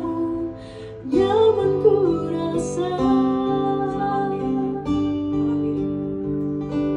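Music with guitar and a singing voice, held notes throughout, briefly dropping away just before the second mark and then coming back.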